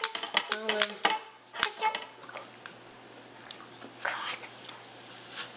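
Kitchen knife cutting into a whole raw apple on a stone countertop: a quick run of clicks and knocks in the first second, another knock about a second and a half in, then quieter cutting.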